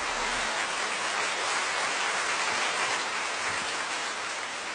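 Audience applauding, a dense steady clapping that slowly dies down.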